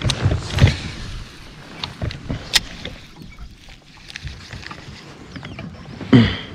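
Handling noises in a plastic fishing kayak: irregular knocks and clicks as a baitcasting rod and reel are moved about, including a sharp click a little after two seconds. The loudest thump comes near the end.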